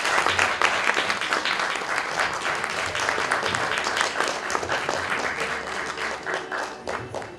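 Theatre audience applauding: a dense, sustained clapping that thins out near the end.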